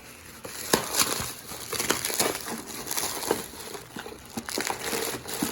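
Packaging crinkling and rustling, with irregular small clicks and crackles, as a box of parts is unpacked by hand.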